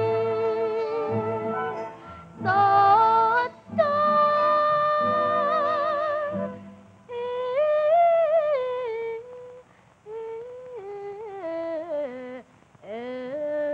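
A young girl singing a solo in a high voice, holding notes with a wide vibrato. An instrumental accompaniment plays under her for the first half, then drops out and she sings on alone in shorter phrases.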